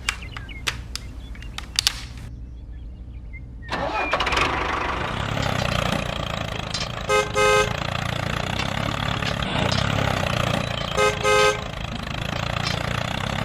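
A few sharp plastic clicks as the corn header is snapped onto a toy combine harvester. Then the toy combine runs with a steady engine drone, and its horn gives two quick beeps twice, about 7 and 11 seconds in.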